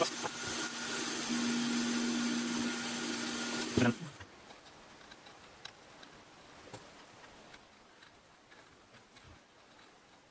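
Hot air rework station blowing a steady hiss with a low hum, cutting off suddenly about four seconds in; after that only a few faint ticks.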